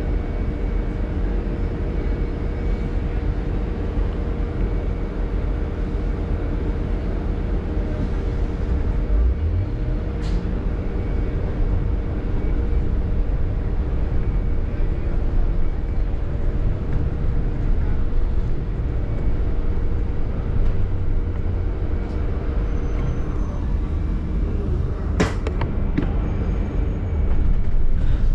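Double-decker bus on the move, heard from on board: a steady low engine and road rumble with a constant hum. There are two sharp knocks, one about ten seconds in and a stronger one near the end.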